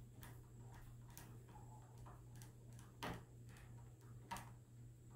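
Faint, irregular clicks of a screwdriver turning a small screw into the plastic end of a roller-shade tube, with two louder clicks about three seconds in and again a second later.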